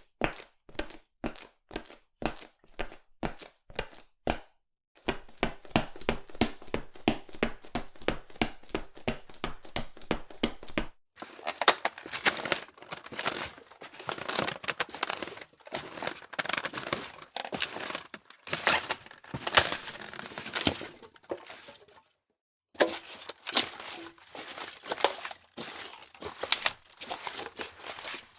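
Footsteps in several separate recordings: first firm, evenly spaced steps about two a second, then quicker steps, then from about eleven seconds in crunchy steps on a loose surface that rustles and crackles, with a short break before more crunchy steps.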